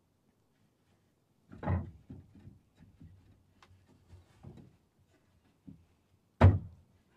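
Wooden knocking as the hardwood boards of a ladder are handled on a plank floor: a heavy thud about a second and a half in, a run of light knocks, then a sharp, loud knock near the end.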